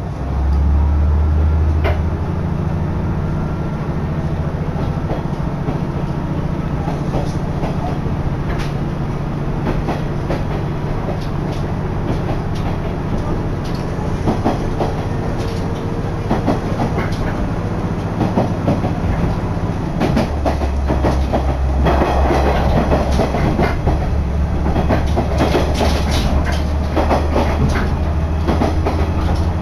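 Diesel railcar running, heard from inside the passenger cabin: a steady low engine drone under wheel-and-rail noise, with the wheels clicking over rail joints. The drone is heavier for the first two seconds and again from about twenty seconds on.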